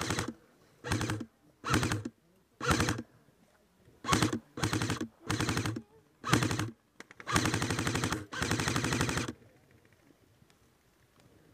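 Airsoft electric gun (AEG) firing full-auto in short bursts, its motor and gearbox whirring under the rapid clatter of shots. There are about nine bursts, and the last and longest runs about two seconds before the firing stops.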